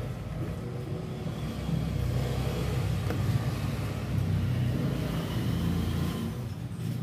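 Bluetooth party speaker's woofer giving a steady low rumbling hum while the board is powered: the speaker is wired to the board's LED light output instead of the speaker output.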